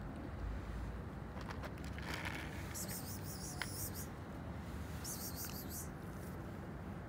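Stray cats eating dry kibble, with a few faint crunching clicks, over a steady low outdoor rumble. Two high-pitched chirring sounds, each about a second long, come a few seconds in.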